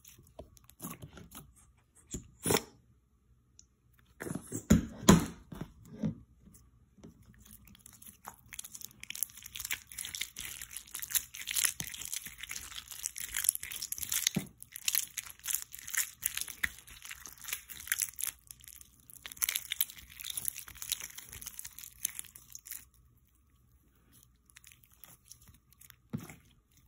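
Glittery putty slime, the clear one softened with hair gel, being squeezed, stretched and poked by hand, making sticky clicks and pops. A few sharp pops come in the first few seconds, then a long run of dense, fine crackling from about a third of the way in, which fades out near the end.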